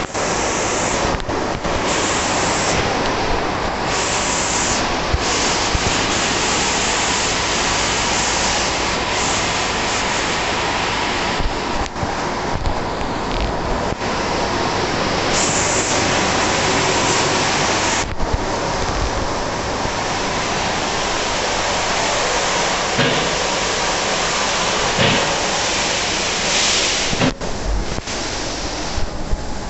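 WashTec SoftCare 2 Pro rollover car-wash gantry at work on a car: a steady hiss of water spraying over a low, even motor hum.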